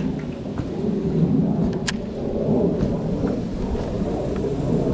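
Steady low rumble of wind buffeting the microphone over choppy water, with a single sharp click about two seconds in.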